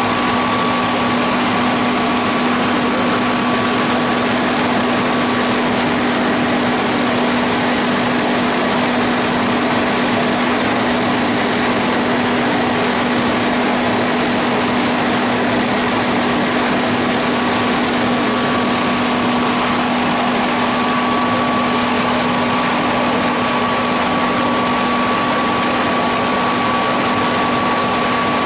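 Spindle veneer peeling lathe running steadily at an even level: a continuous hum with a steady tone, under a constant rushing noise.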